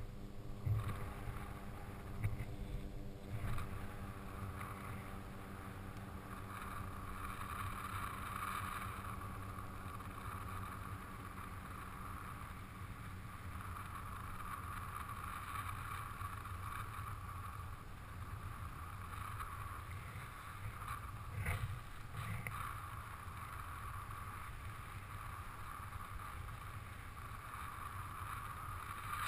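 Air rushing over the microphone of a parachutist descending under a round canopy: a steady rushing noise with a low rumble and a few louder buffets. A faint droning hum fades out over the first few seconds.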